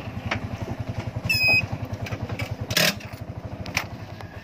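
TVS King three-wheeler's single-cylinder engine running with a rapid, even low putter that fades near the end. A brief high squeak comes about a second and a half in, and a loud sharp clack follows about a second later.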